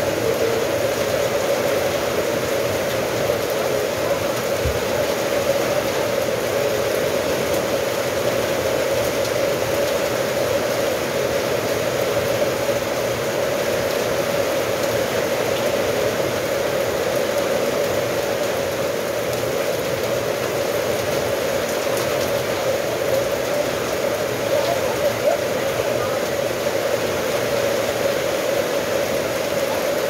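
Steady rain falling, an even hiss that keeps the same level throughout.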